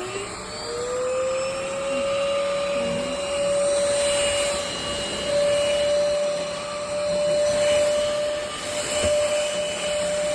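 VersLife cordless stick vacuum's motor spinning up, its whine rising in pitch over the first second. It then runs at a steady pitch, growing louder and quieter by turns.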